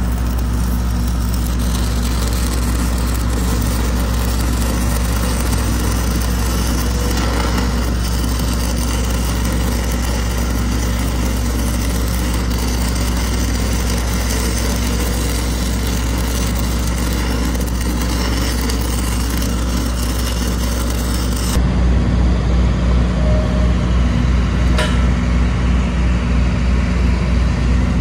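Stick-welding arc crackling and hissing steadily as a bead is run around a steel pipe elbow, over the steady drone of an engine running underneath. About 21 seconds in the crackle stops and the engine drone is left, louder and pulsing.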